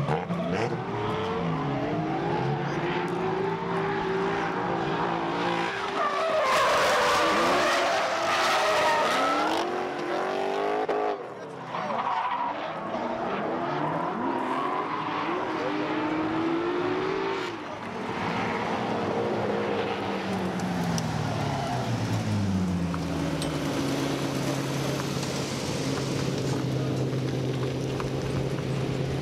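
Drift car engines revving up and down, with tyres squealing through the slides, loudest about a quarter of the way in. The engines settle into a steadier drone in the last few seconds.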